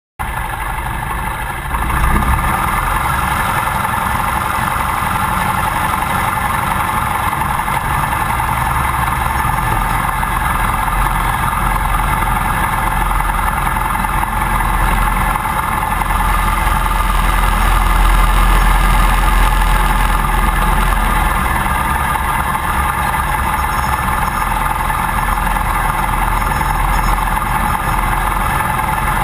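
Piper J3 Cub's Continental C-90 air-cooled flat-four engine running steadily at low taxi power, turning the propeller. The engine steps up slightly about two seconds in, then holds an even drone.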